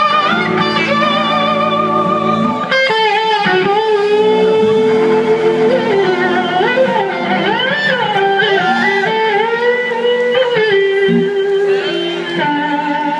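Live band playing an instrumental passage. An electric guitar lead plays notes that glide up and down in pitch over a second electric guitar and the rest of the band.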